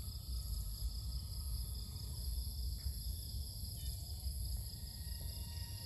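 Insect chorus: several steady high-pitched trills at different pitches, over a continuous low rumble.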